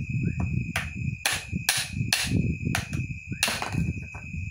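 Sharp knocks of hard plastic, roughly two a second with a short pause midway, as a PVC filter pipe and suction hose are handled and worked together.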